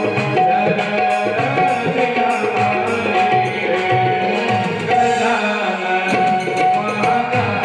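Devotional bhajan music: a tabla plays a steady rhythm under a held melody line.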